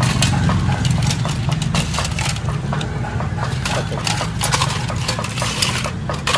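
A steady low engine-like hum with many irregular sharp clicks and rattles of hard objects being handled and shifted.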